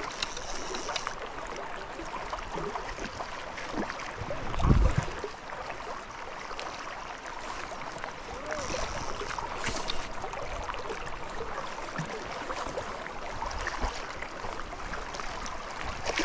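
River water rushing and lapping in a steady wash around a wading angler, with a brief low rumble about five seconds in.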